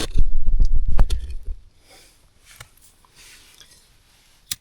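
Camera being handled and turned down: low rumbling handling noise with sharp knocks for about a second and a half, then faint hiss and a single sharp click near the end.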